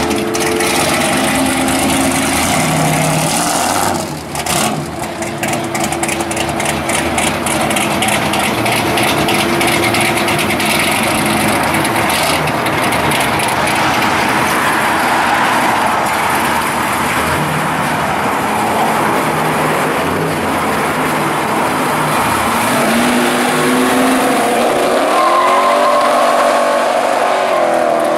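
Cars with their engines running drive past at low speed. Near the end, one engine revs up and down several times.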